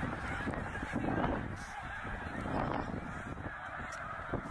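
A huge flock of snow geese calling all at once: a dense, unbroken chorus of honks.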